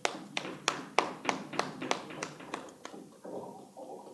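Hands clapping in an even rhythm, about three claps a second, stopping after about three seconds.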